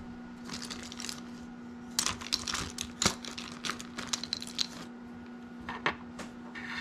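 Small plastic resin and PVC charms being handled, clicking and tapping together in a quick run of light clicks and rustles, then a few scattered clicks near the end.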